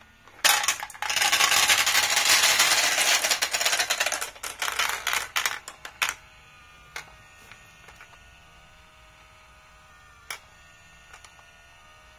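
Glass marbles clattering and rolling fast down plastic marble-run track in a dense, loud rattle of clicks for about five seconds. After that come a few single clicks as marbles arrive one at a time at the auger lift, with a faint steady hum underneath.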